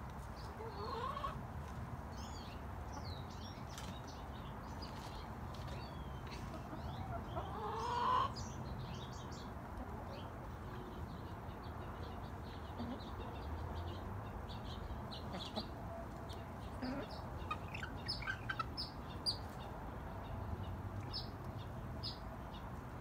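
Young chickens calling softly: scattered short clucks and chirps, with a louder rising call about eight seconds in and a run of quick high chirps near the end, over a steady low background rumble.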